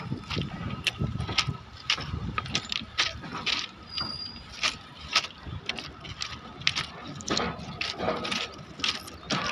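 Moving train clattering and rattling, with irregular sharp clicks and knocks over a low rumble.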